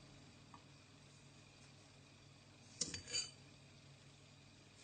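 Mostly quiet room tone; about three seconds in, a spoon clinks once against a small glass jar, then a short rush follows as sugar is tipped onto the chopped onion.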